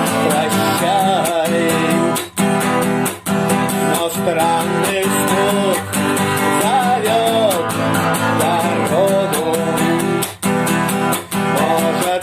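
Instrumental passage of a guitar song: strummed guitar over a steady beat, with a wavering lead melody line on top.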